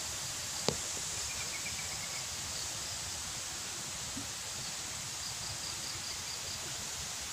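Steady outdoor hiss of a shallow creek and its surroundings, with insects chirping in two short rapid trains. A single sharp click sounds just under a second in.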